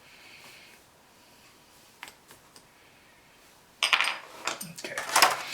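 Small metal screws clicking and rattling against each other and a hard surface: a few light ticks, then, near the end, a louder run of clinking.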